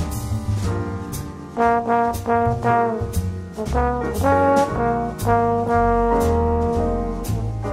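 Instrumental background music: a melody of held notes over a bass line, with a steady beat.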